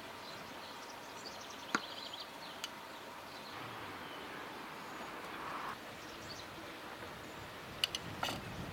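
Outdoor garden ambience: a steady faint hiss with a few faint bird chirps, broken by a few sharp clicks, one about two seconds in and a quick cluster near the end.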